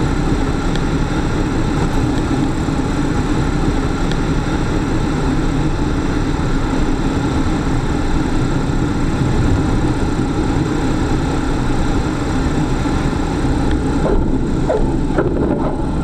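Small single-engine propeller plane's engine running steadily at low power. A few short squeaks come in near the end.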